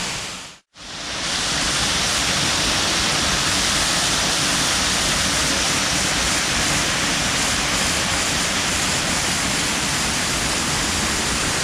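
Waterfall rushing steadily, a dense even roar of falling water. The sound briefly cuts out about half a second in, then returns at the same level.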